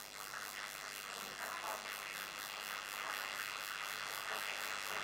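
Faint steady background hiss, with a few faint, indistinct sounds in the first couple of seconds.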